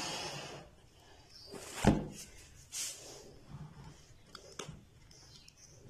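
A plastic kulfi mould tray handled on a table: one sharp knock about two seconds in as it is set down, then a few lighter plastic clicks as hands grip the moulds. At the start, a splashing hiss of water from the soaking bowl fades out within the first half second.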